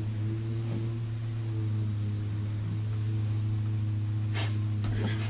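A boy holds a long, steady "hmmm" at one low pitch while thinking over a question, with a couple of short breathy sounds near the end.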